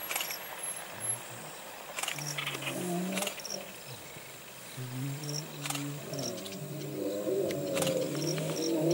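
African lions growling in an uneven, wavering rumble. It begins a few seconds in and grows louder toward the end.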